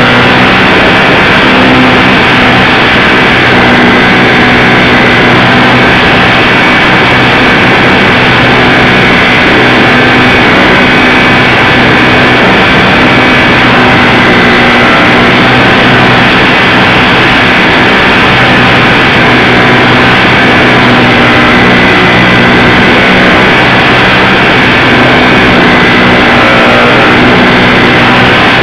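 Electric motor and propeller of a ParkZone Super Cub LP radio-controlled plane running steadily in flight, heard loud and close from a camera mounted on the plane.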